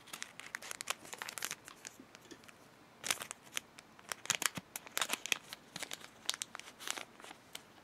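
Scissors cutting across a crimped plastic-film sticker packet with crackling snips, then, after a short pause, the packet crinkling as fingers work it open.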